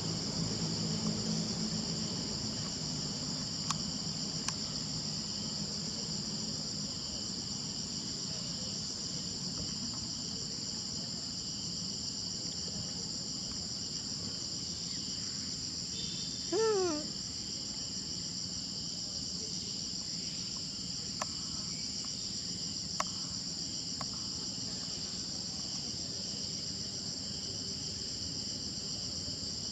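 Steady, high-pitched chorus of insects. About sixteen seconds in, a single short animal call falling in pitch cuts through, and a few faint clicks are scattered through it.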